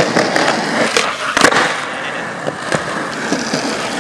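Skateboard wheels rolling on smooth concrete, with a few sharp clacks of the board striking the ground, the loudest about one and a half seconds in.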